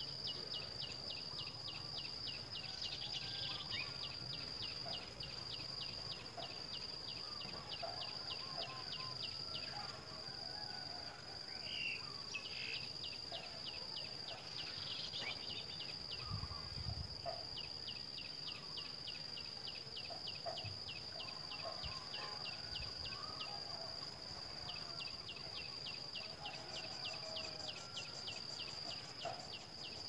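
Insects in the grass: a steady high-pitched drone with a fast ticking pulse of about five ticks a second that breaks off now and then. Faint short chirps sound underneath.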